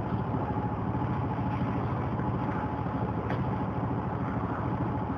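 Steady low mechanical hum of a running motor, with a fast even pulse and a faint thin high tone over it.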